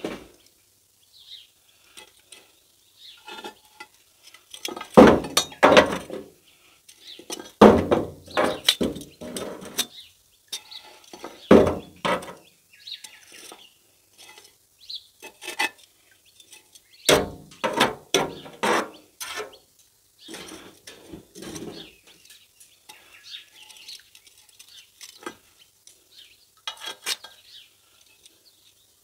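Metal tongs clinking and knocking against charcoal heat beads and the cast iron lid of a camp oven as the beads are set onto it, in several irregular clusters of clicks with quiet gaps between.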